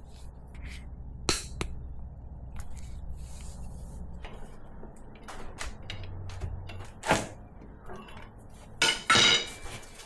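Hand tools working on the bolts between a gearbox and its transfer case: scattered metallic clicks and knocks, with a longer rattle about nine seconds in.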